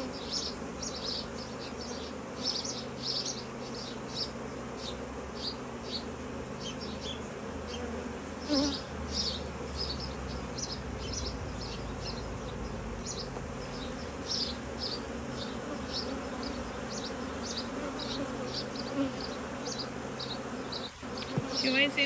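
Honey bees buzzing steadily in a low hum from an opened hive, with short high-pitched chirps coming several times a second over it and a brief knock about eight and a half seconds in.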